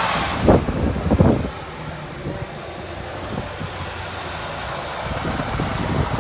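Chevrolet Corvette Z06's supercharged V8 running with the hood open. It surges briefly twice, about half a second and just over a second in, then settles to a steady idle.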